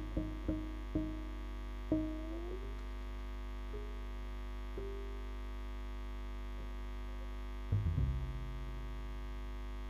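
Double bass played in sparse plucked notes over a steady electrical hum: a few short notes, one bending upward in pitch about two seconds in, a couple of isolated notes, then a quick cluster of low notes near the end that rings out.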